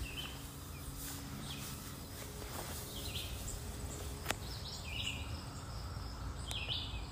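Outdoor ambience: small birds chirping briefly every second or so over a steady low rumble, with one sharp click a little past the middle.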